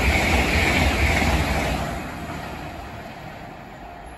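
LNER Azuma high-speed train passing, a loud, even rush of wheel and air noise from its rear coaches that fades away over the last couple of seconds as the train recedes down the line.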